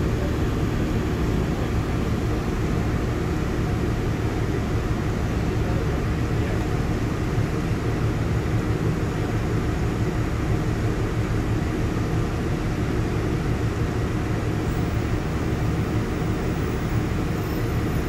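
Steady interior running noise of a Class 155 diesel multiple unit: the even hum of its underfloor diesel engine under the rumble of the train moving along the rails.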